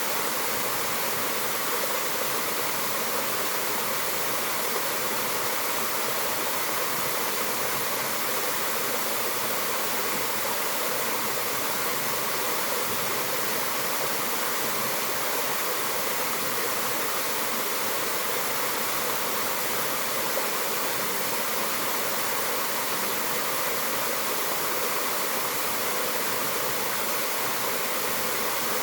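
Mountain waterfall: steady rushing and splashing of falling water, a constant even roar with no change.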